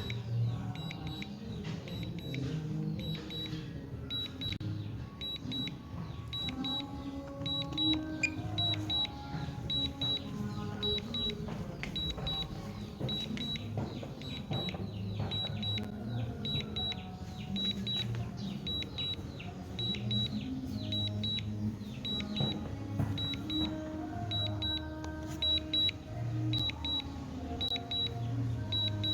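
Background music with a short high-pitched double beep repeating about once a second throughout, typical of a DJI drone remote controller's low-battery warning.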